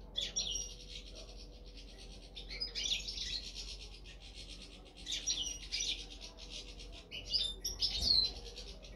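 European goldfinch singing: a rapid, high twittering and tinkling song that comes in several bursts.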